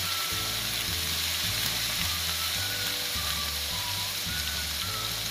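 Blended shallot, garlic and chili paste sizzling steadily in hot oil in a wok, fried down until the oil separates from the paste.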